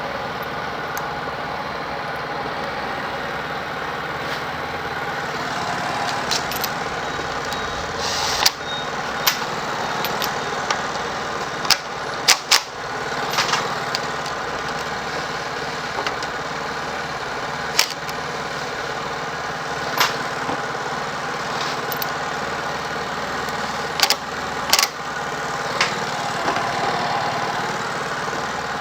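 A small engine running steadily at idle, with sharp clicks and knocks every few seconds, a few of them in quick pairs.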